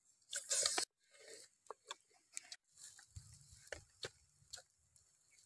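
People biting, tearing and chewing roasted goose meat: scattered small mouth clicks and smacks, with a short louder noise about half a second in.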